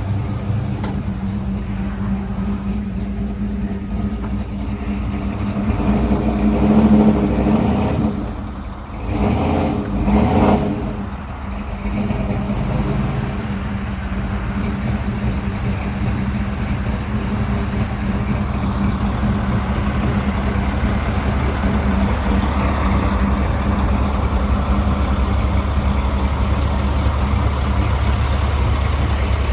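Car engine running steadily, with two brief swells in level about seven and ten seconds in.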